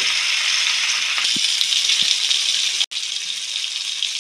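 Oil sizzling steadily around chicken tikka skewers frying in a pan over low-to-medium heat. The sizzle breaks off for an instant about three seconds in, then carries on a little softer.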